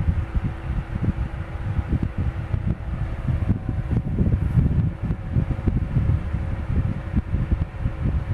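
Casablanca Zephair 16-inch table fan running steadily: a constant motor hum, with an uneven low rumble where its air stream hits the microphone.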